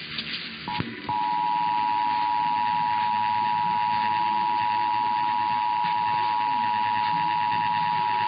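Emergency Alert System two-tone attention signal: two pitches near 1 kHz, 853 and 960 Hz, sounded together. It opens with a brief blip and a click, then from about a second in holds loud and unwavering. It announces the statewide monthly test message that follows.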